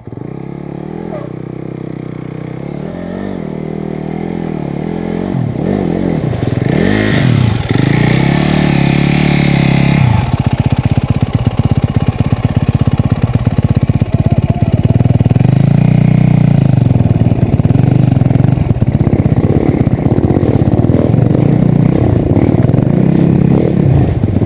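Dirt bike engine running, getting louder over the first few seconds, then revving up and down in several quick sweeps, then running hard and loud at high revs for the rest.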